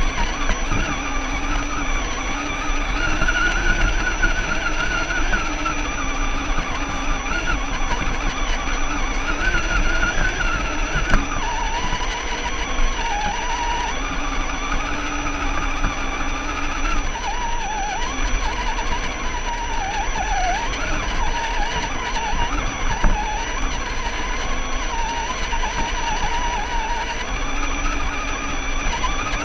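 Electric motor and gear drivetrain of a radio-controlled scale rock crawler whining as it climbs, the pitch wavering up and down with throttle and load, over a steady high tone. A couple of short knocks come partway through.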